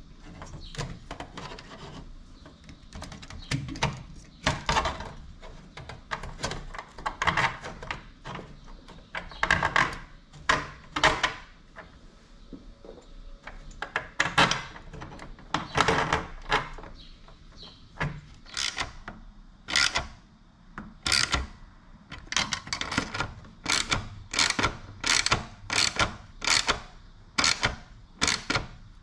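Hand wrench working the nuts and bolts of an oil cooler mount on a small engine frame: a long series of short scraping, clicking strokes, irregular at first, then quicker and more even, about one and a half a second, near the end.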